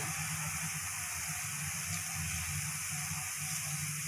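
Cumin seeds with bay leaves and whole spices sizzling in hot oil in a kadhai, with a few faint pops: the cumin is starting to crackle, the stage of the tadka at which the next ingredients go in. A steady low hum sits underneath.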